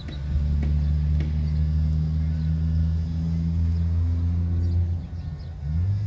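A nearby engine or motor running with a steady low hum; it swells about half a second in, eases off about five seconds in, then picks up again.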